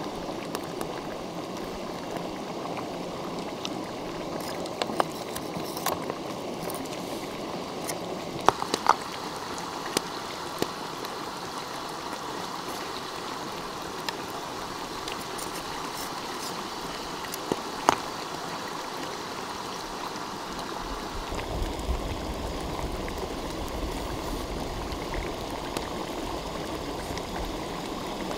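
Shallow stream running steadily, with scattered sharp clicks and taps in the first two-thirds and a low rumble coming in a little past two-thirds of the way through.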